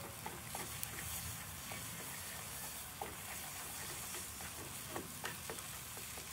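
Food frying and sizzling in a skillet while a wooden spatula stirs it, with scattered light clicks of the spatula against the pan.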